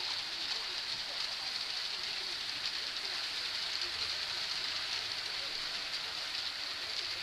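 A steady, even hiss that holds a constant level.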